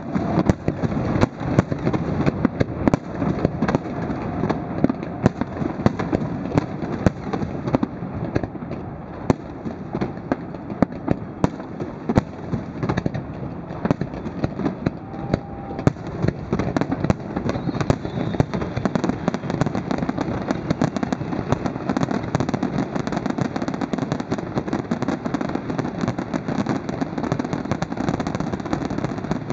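Aerial fireworks display: a steady run of shell bursts with sharp bangs and crackle. The bangs grow denser and more continuous in the second half.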